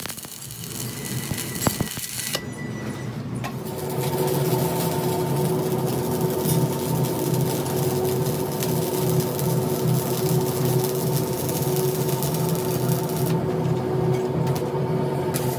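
Stick (arc) welding on a steel air-compressor tank: the arc crackles and sizzles steadily. From about four seconds in, a steady low electrical hum runs under it.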